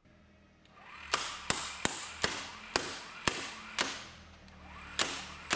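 12-volt egg-beater style impact wrench starting up with a low motor hum and hammering a bolt on a torque tester with sharp clacks, about two to three a second, the gaps growing a little longer as the torque builds.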